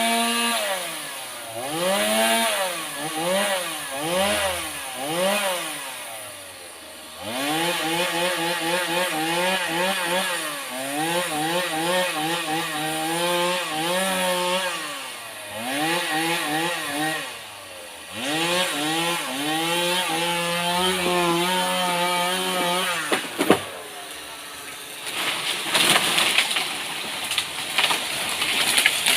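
Chainsaw engine revving up and down in repeated bursts, sometimes held at high revs for a few seconds as it cuts, for most of the stretch. About two-thirds of the way through the engine note drops away. Then comes a sharp knock, followed by a rougher, noisier stretch with sharp snaps, the sound of wood cracking.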